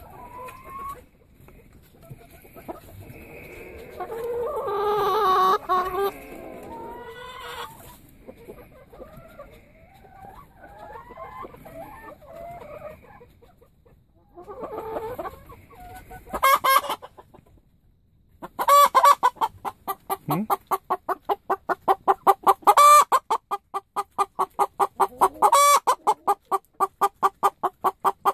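Domestic hens clucking softly, then about two-thirds of the way through a hen breaks into a loud, fast cackle: an even run of clucks, about four or five a second, with a few louder squawks among them.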